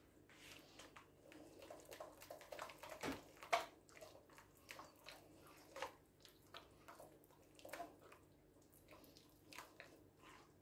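A hand squishing and working soft, wet batter in a large earthenware bowl: faint, irregular squelches and small sticky clicks, the loudest a little past three seconds in.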